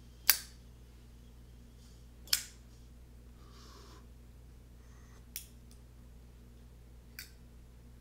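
Zippo lighter handled with sharp metallic clicks: two loud clacks about two seconds apart, then two fainter clicks later on.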